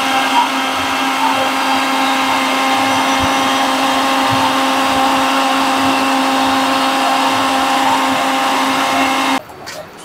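An electric blender runs steadily, churning a full jar of lassi, a yogurt drink, with a constant motor hum. It is switched off about nine seconds in and cuts out suddenly.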